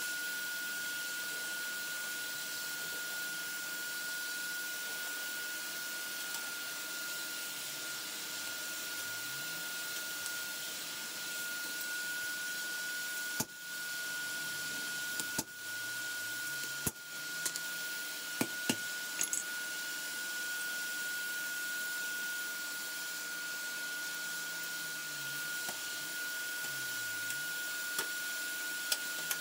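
Steady hiss of a forge air blower with a constant high whine. About halfway through come several sharp hammer strikes on the steel blade at the anvil, spread over about six seconds.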